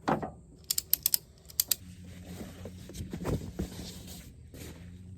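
Camping gear being handled: a quick run of sharp clicks about a second in, a few more just after, then rustling.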